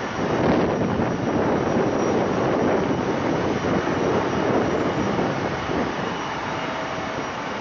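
Airbus A330 airliner on final approach with its landing gear down: a steady rushing jet noise that swells about half a second in and eases slightly near the end.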